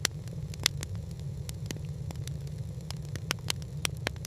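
Wood fire crackling: irregular sharp pops over a steady low rumble.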